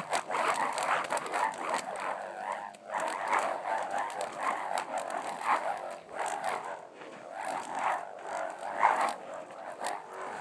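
WindSingers, small noisemakers swung around on cords, whirring as they are whirled overhead, with a rough buzzing tone that rises and falls in repeated swells with each swing.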